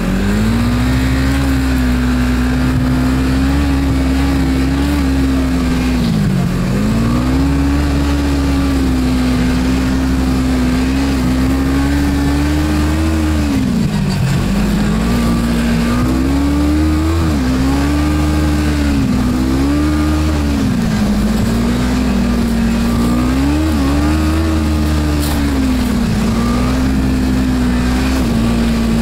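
Snowmobile engine running steadily, its pitch dropping and climbing back several times as the throttle is eased off and opened again.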